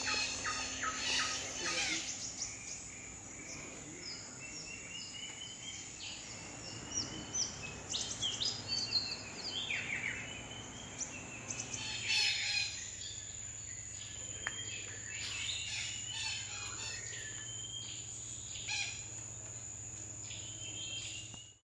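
Tropical rainforest birds calling in many short chirps and whistled notes over a steady, high insect drone, fading out near the end.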